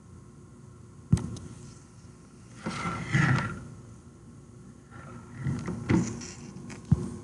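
Handling noises on a desk: a sharp click about a second in, two spells of rubbing and knocking, and another sharp click near the end.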